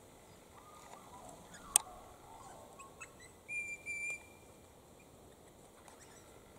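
Australian ringneck (twenty-eight) parrots calling: two short whistled notes at the same pitch in quick succession about halfway through, after some softer chirps. A single sharp click comes a little under two seconds in.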